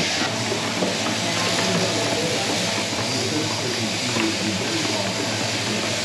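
Steady mechanical hiss and rattle of sheep-shearing machinery running in a shearing shed, with wavering calls from penned lambs bleating over it.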